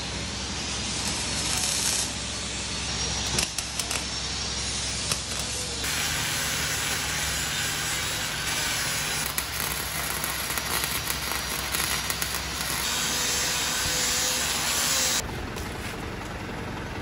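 Metalworking on a steel office-chair base with an electric angle grinder and a welder: a steady rough hiss with scattered crackles and clicks. It comes in several short clips that change abruptly about 2, 3.5, 6 and 15 seconds in.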